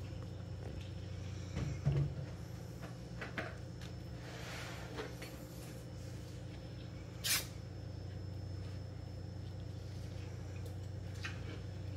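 Steady low hum under a few light knocks and rustles, with a louder pair of knocks about two seconds in and a single sharp click a little after seven seconds.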